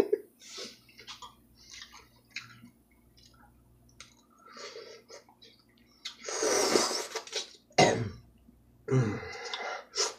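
A person eating instant cup noodles: small clicks of a fork in the cup, a loud slurp of noodles about six seconds in, chewing, then two short coughs.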